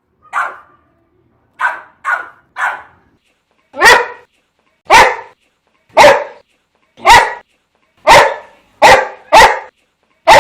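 Boxer dog barking repeatedly: a few softer barks, then louder, deep barks about once a second, coming quicker near the end.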